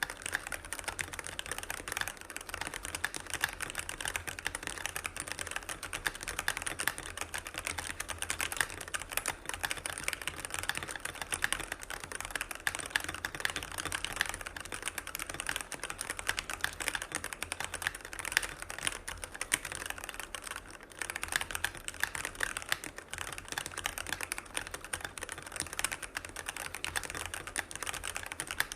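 Continuous fast typing on a stock, unmodified Keychron K6 Pro mechanical keyboard fitted with factory-lubed Keychron K Pro switches, a PCB foam and a thick silicone case foam. It is a dense stream of quick key clicks with a short lull about twenty seconds in.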